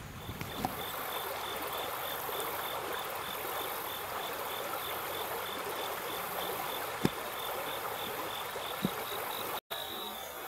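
Shallow creek water running over rocks in a steady rush, with an even high-pitched pulsing about four times a second above it. Two or three sharp clicks stand out, the loudest about seven seconds in.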